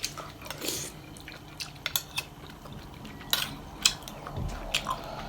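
Eating utensils clicking and scraping against a bowl or dish, a string of light, sharp clicks at uneven intervals.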